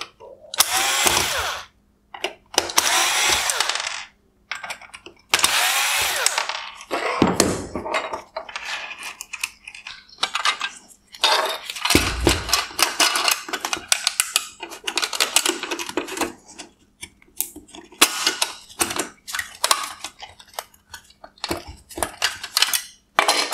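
Cordless electric screwdriver running in three bursts over the first several seconds, backing T20 Torx screws out of a headlight projector's plastic housing. It is followed by a string of plastic clicks and rattles and a single thump as the projector parts are pulled apart by hand.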